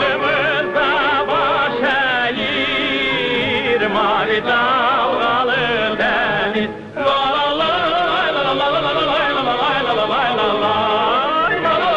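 Background music with a melody that wavers in heavy vibrato over accompaniment.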